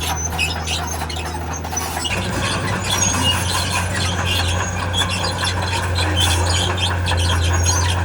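Diesel engine of a tracked machine running, its hum growing louder about two seconds in, under many short high-pitched squeals and scrapes from the steel crawler tracks.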